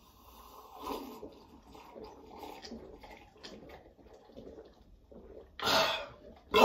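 People gulping soda from cups: faint swallows and breaths, then a loud breathy exhale near the end as one finishes drinking.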